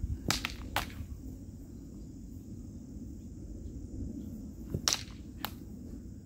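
Sabre blades clashing in a sparring exchange: two sharp clacks in quick succession just after the start, and two more about five seconds in.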